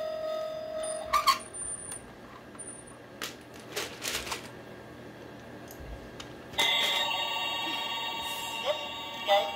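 Battery-operated toy bullet train's electronic sound effects as its roof buttons are pressed. A steady electronic tone fades out in the first second or so, and a few sharp clicks from the buttons follow. About six and a half seconds in, another electronic sound starts suddenly and plays on until near the end.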